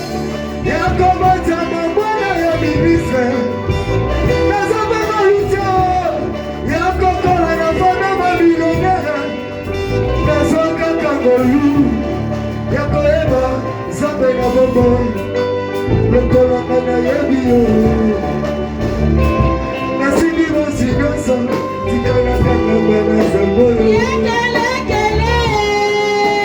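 Live church worship music: singing over a band with bass and drums, ending on a held chord.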